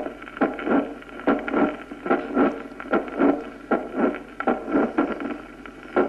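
Recorded heart sounds heard through a stethoscope, beating in a steady regular rhythm: a late systolic murmur that swells toward the second sound, with a mid-systolic click, typical of mitral regurgitation from mitral valve prolapse.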